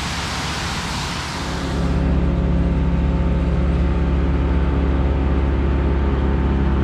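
Rushing waterfall noise, which gives way after a second or two to a louder, steady low droning hum with many even overtones.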